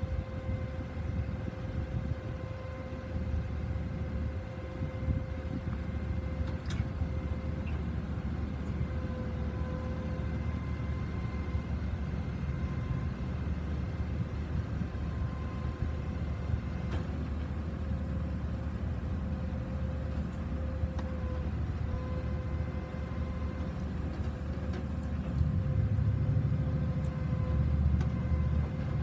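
2009 Chevrolet W4500 bucket truck's 6.0L V8 engine running with a low rumble and a steady whine while the ETI aerial boom is lowered on its hydraulics. The rumble grows louder near the end.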